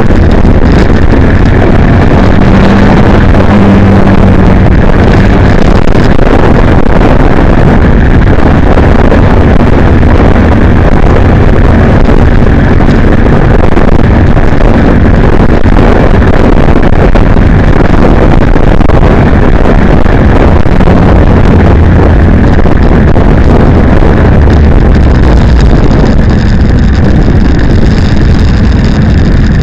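Motorcycle at road speed: heavy wind rushing over the microphone with the engine's low drone underneath, steady throughout.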